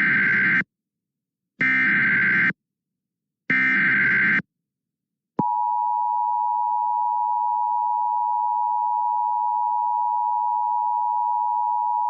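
Emergency Alert System SAME header: three identical bursts of shrill, buzzing digital data tones, each about a second long, coding a flash flood warning. About five and a half seconds in comes the EAS two-tone attention signal, 853 and 960 Hz sounded together, a steady, piercing tone held without change.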